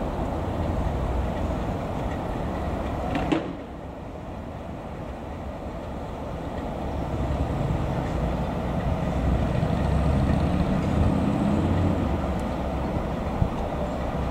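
Steam locomotives moving slowly about the station tracks: a low, steady rumble that drops off abruptly about three seconds in, then builds again as a small tank engine draws nearer, with a sharp click near the end.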